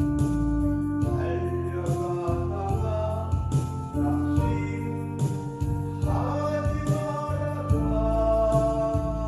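Korean Christian praise song: a singing voice held over sustained instrumental accompaniment.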